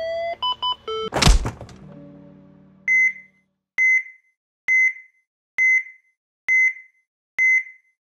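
Logo sting sound effects: a rising siren-like tone cuts off, a few quick beeps, a loud hit that fades over about a second, then a heart-monitor beep repeating steadily about once a second, six times.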